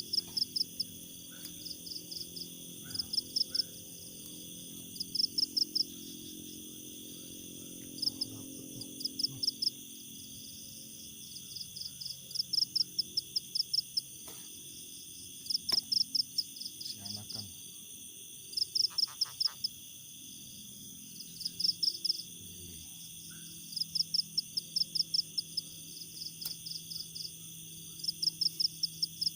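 Night chorus of frogs and insects: short trains of rapid high-pitched pulses every second or two, over a steady high insect drone.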